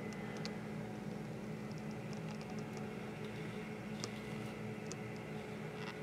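Corn-harvest machinery running at a steady drone with a constant engine hum, and a scattering of faint light ticks and rattles over it.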